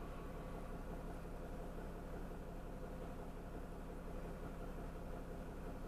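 Truck engine idling while stopped in traffic, a steady low hum.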